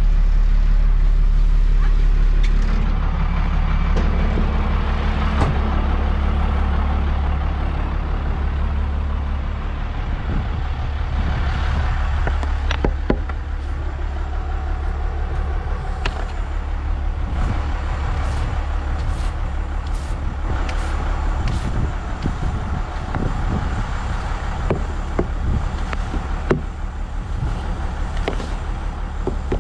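A vehicle engine idling steadily throughout, louder for the first couple of seconds, under scattered knocks and short repeated scraping strokes as a snow brush sweeps heavy snow off a skid steer loader's cab.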